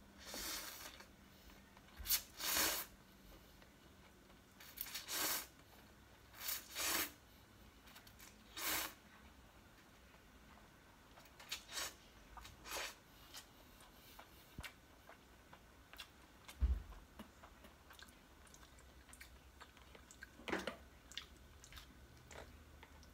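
A person slurping Korean ramen noodles in about ten short, separate slurps, with quieter chewing and small clicks between them. A single dull thump about two-thirds of the way through.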